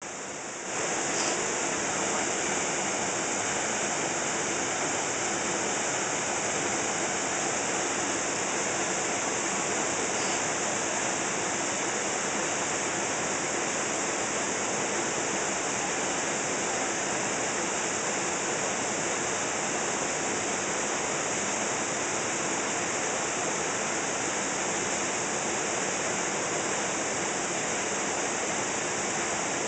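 Waterfall in heavy flow pouring into a plunge pool: a steady rushing of water that swells up within the first second and then holds even.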